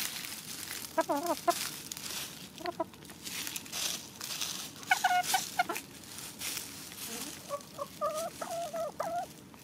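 Hens clucking in short bursts of calls, with a longer run of clucks near the end, as they peck salami from a hand. Dry leaf litter crackles underneath throughout.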